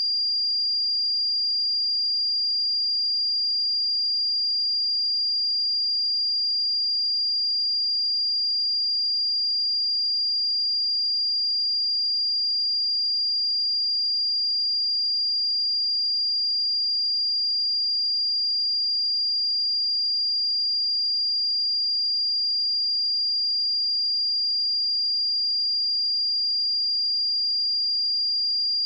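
A pure 4791 Hz sine-wave test tone, a single steady high-pitched whistle at constant level, used to check speakers and headphones.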